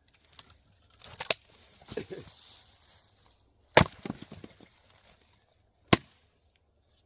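A light 3.5-pound Velvicut axe splitting Douglas fir firewood: three sharp chopping strikes, about a second in, near four seconds (the loudest) and near six seconds, with smaller knocks after the loudest strike as split pieces fall.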